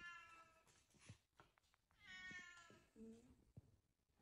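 Faint high-pitched whines from a Shiba Inu: two short, slightly falling whines about two seconds apart, then a brief low grunt, with a few soft ticks.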